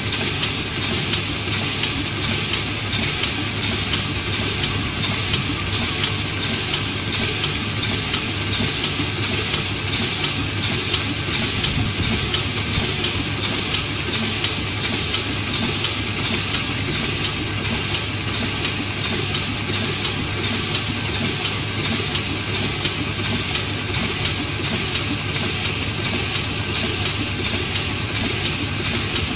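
Zhongye offset printing press running, feeding and printing paper sheets, with a steady, unbroken mechanical running noise that holds an even level throughout.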